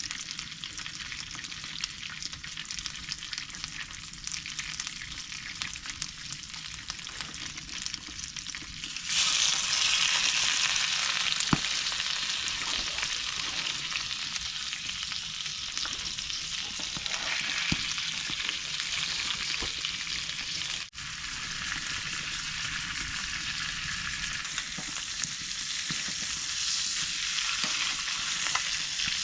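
Food sizzling and frying in a hot pan, a steady crackling hiss that gets louder about nine seconds in and stays loud, with a momentary drop about two-thirds of the way through.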